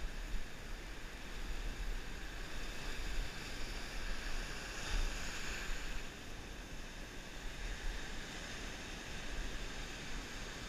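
Surf washing up a sandy beach, with wind rumbling on the microphone; a wave wash swells louder about five seconds in.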